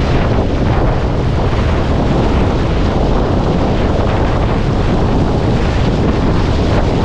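Steady, loud wind buffeting the microphone, over water rushing along the hull of a Farr 280 sportsboat under sail.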